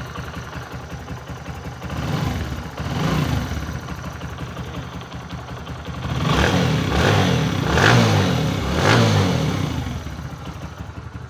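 Bajaj V15 motorcycle's single-cylinder engine idling and revved in short blips: twice a couple of seconds in, then four times in a row past the middle, before settling back to idle. It is running smoothly after an engine repair that cured a 'kat kat' knocking noise, with its original sound back.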